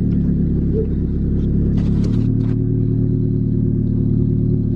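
Nissan 180SX engine idling steadily with its newly fitted Kinugawa GTX2867R turbo, run after the turbo swap while the coolant is being bled.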